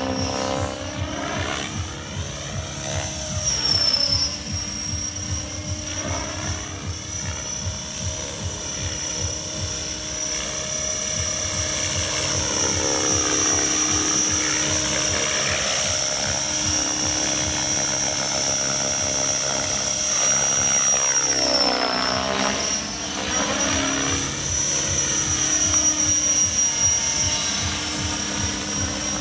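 Radio-controlled model helicopter flying aerobatic manoeuvres: a steady high whine with a fast rotor chop underneath. Its tone sweeps up and down as it turns and passes, and the whine dips briefly about 4 and 22 seconds in.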